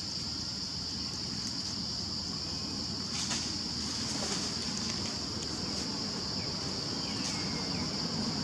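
Outdoor ambience: a steady high-pitched insect drone, with a low steady rush underneath, a few short falling chirps and faint clicks.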